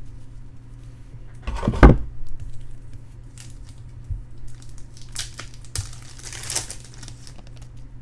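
Foil trading-card pack wrapper crinkling and tearing as packs are opened and cards handled, with a louder knock of handling just before two seconds in.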